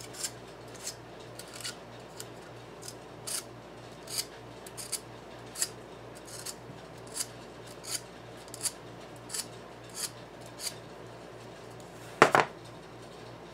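Short, sharp scraping strokes, about one and a half a second, as a small blade scrapes the enamel off the copper lead wires of a hand-wound subwoofer voice coil. They stop, and a loud knock follows near the end.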